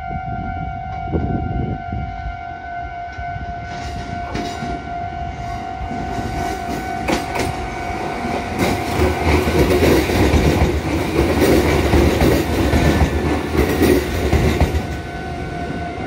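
A two-car Kotoden 1080-series electric train passes close by. Its running rumble builds and is loudest from about 9 to 15 seconds in, with sharp clicks of the wheels over the rail joints. A level-crossing alarm rings steadily throughout.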